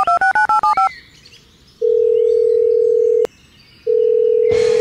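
Phone keypad tones as a number is dialled, a quick run of short two-note beeps, followed by the ringback tone of an outgoing call: two long steady tones with a short gap between them. Music comes in near the end.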